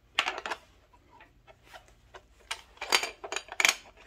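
Clicks and knocks of hard plastic and metal as a Makita cordless trim router is picked up and handled: a few in the first half second, then a quicker run of sharper clicks near the end.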